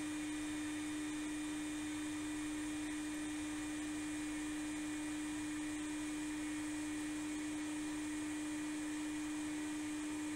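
Blower fan of an RF4 RF-H2 hot air rework station running at full airflow with the handpiece on its stand, cooling the heater down before the unit sleeps: a steady hum at one pitch over an even rush of air.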